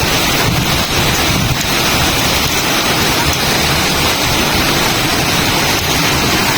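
Strong storm wind blowing hard across the microphone: a loud, steady rushing noise with constant low buffeting rumble.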